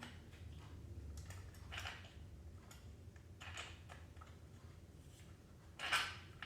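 A few light clicks and knocks of plastic and metal parts on a cordless SDS-Plus rotary hammer drill being handled, the loudest near the end, over a low steady hum.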